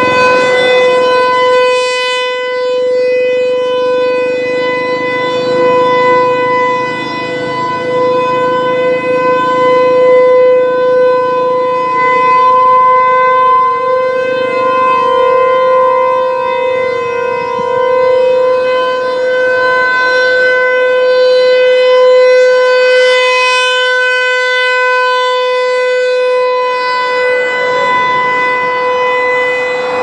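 Federal Signal Equinox electronic siren sounding a steady alert tone of about 500 Hz. Its rotating horn makes the level swell and fade slowly as it turns toward and away.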